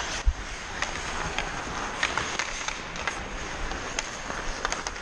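Ice hockey skates scraping and carving the ice, with scattered sharp clicks of sticks hitting the puck and the ice. A low thump comes just after the start.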